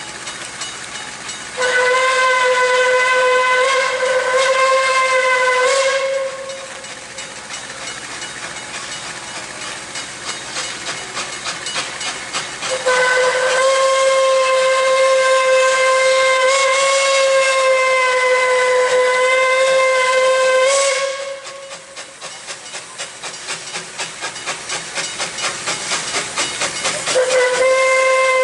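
Puffing Billy narrow-gauge steam locomotive sounding its whistle in long steady blasts: one of about four seconds, then one of about eight seconds, and a third starting near the end. Between the blasts the engine's exhaust chuffs rhythmically, growing louder.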